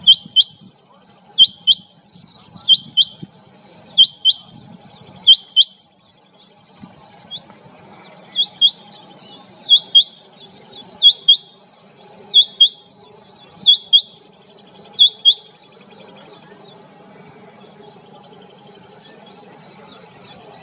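Rain quail calling: a sharp two-note call, repeated about every 1.3 seconds, with a short pause after the fifth pair, and stopping about three-quarters of the way through. Faint high twittering lies underneath throughout.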